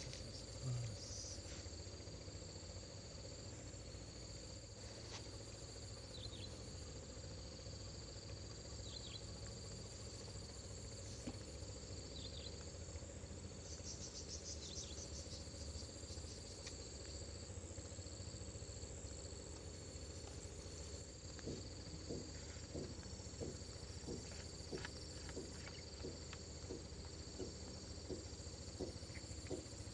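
Evening insect chorus: steady, high-pitched trilling. From about two-thirds of the way in, a run of soft, evenly spaced ticks joins it.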